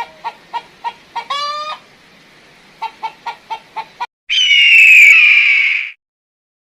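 Chicken clucking in a rapid series of about four to five clucks a second, broken by a short rising squawk a little over a second in. About four seconds in, a loud, harsh, slowly falling drawn-out call from another animal starts and cuts off suddenly.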